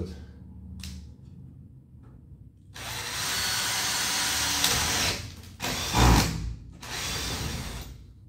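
Cordless screwdriver driving self-tapping screws into a stretch-ceiling profile overhead. It runs once for about two and a half seconds and again for about a second near the end, with a sharp knock between the two runs.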